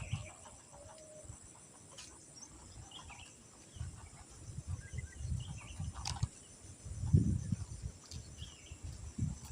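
Outdoor insect drone, high and steady, with short bird chirps several times, over low, uneven rumbles and thumps that are loudest about seven seconds in.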